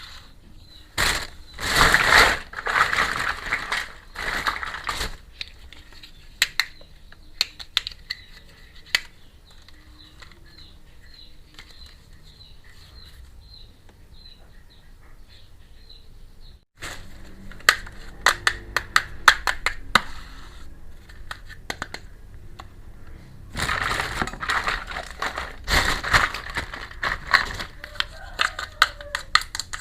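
Plastic packaging crinkling and small plastic toy pieces clicking and tapping as a miniature toy kitchen set is unboxed. There are two spells of louder crinkling, near the start and again about three-quarters of the way through, with scattered sharp clicks between.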